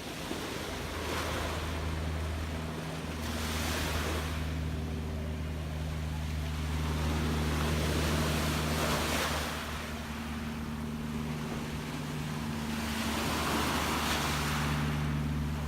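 Gentle ocean waves washing in and receding, swelling about four times, with a steady low hum underneath.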